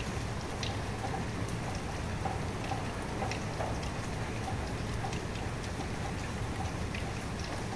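Steady rainfall, with individual drops landing close by as scattered short ticks over the even hiss.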